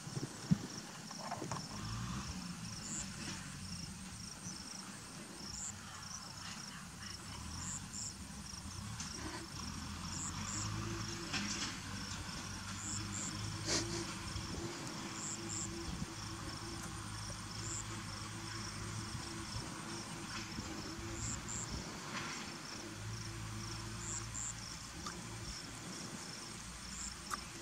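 Outdoor field ambience: insects chirping in a regular run of short, high chirps, with higher double chirps every second or two, over a low steady hum. There are a couple of sharp clicks.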